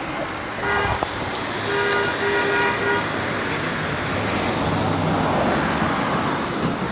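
Road traffic with a vehicle horn: one short honk about a second in, then three quick toots. After that, a passing vehicle's rush of noise swells and fades.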